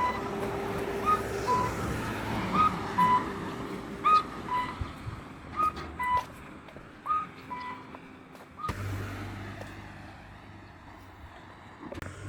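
A bird's whistled two-note call repeated about every second and a half: a short rising note, then a slightly lower level one. The calls stop about two-thirds of the way in and a low steady hum takes over.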